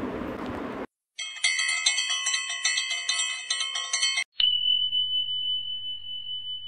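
End-screen sound effects: after the last second of background music breaks off, a run of bright, bell-like chimes rings for about three seconds, then a click and a single high ringing tone held to the end.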